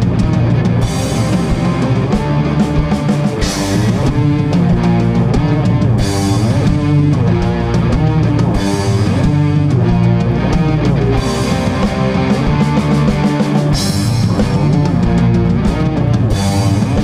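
Heavy rock band playing live, an instrumental passage: distorted electric guitars and bass over a drum kit with regular cymbal crashes.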